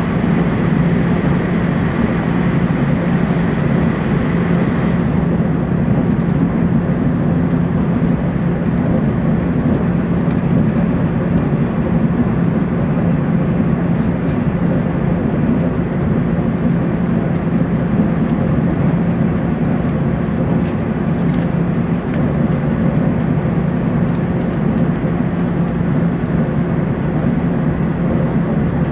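Steady running noise inside a passenger car of a Taiwan Railways TEMU2000 Puyuma electric multiple unit at speed: a low rumble with a steady low hum, and a faint higher tone that stops about five seconds in.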